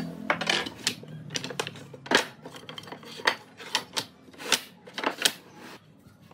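Thin wooden strips clacking against one another and the wooden workbench as they are shuffled and lined up by hand: a quick, uneven run of sharp wooden knocks, the loudest about two seconds in.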